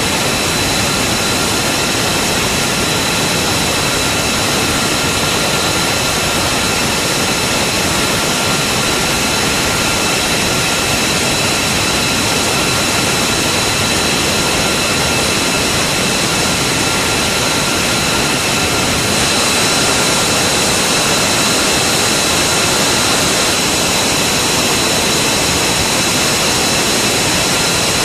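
F-22 Raptor's twin Pratt & Whitney F119 turbofan engines running steadily: a constant jet rush with a high whine over it. The whine and rush shift slightly about two-thirds of the way through.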